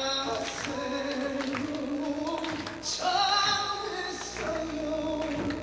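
A man singing a slow Korean song solo, holding long notes that waver in pitch.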